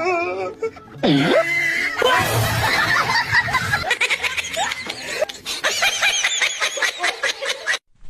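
People laughing over music, with a run of quick repeated laughs in the second half that cuts off suddenly near the end.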